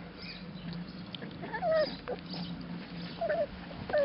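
Labrador retriever puppies giving a few short, high whimpers that bend in pitch, over scattered small clicks and smacks from eating out of enamel bowls.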